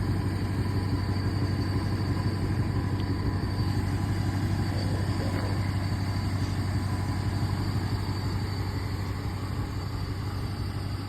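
Dodge R/T's V8 engine running steadily with a low, even rumble.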